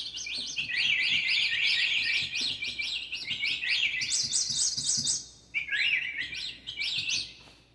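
Yamaha DGX-660 keyboard's Bird Tweet sound-effect voice: rapid trains of rising electronic chirps at several different pitches, with a short break about five seconds in.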